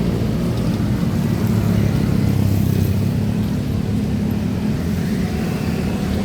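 A motor vehicle running steadily: a continuous low rumble of engine and road noise.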